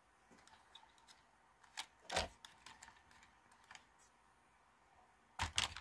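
Small sharp clicks and taps from handling a 1/24-scale RC crawler truck: a couple of single clicks a couple of seconds in, then a quick run of clicks near the end.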